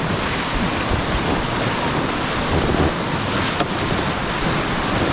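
Rushing whitewater of a glacial river around a paddle raft heading into a rapid, with wind buffeting the microphone in a steady rumble.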